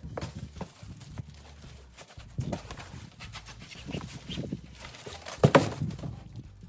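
Cardboard box and packing foam and plastic rustling and scraping as a new radiator is unpacked, with irregular knocks and taps, the loudest about five and a half seconds in.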